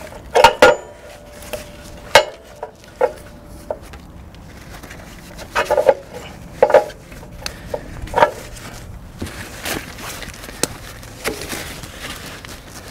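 Steel hydraulic quick-coupler fittings and hose ends clinking and clacking, metal on metal, as the hammer's hoses are coupled to the skid steer's auxiliary lines. Several sharp clinks are scattered through it, the loudest in the first few seconds, one leaving a brief metallic ring.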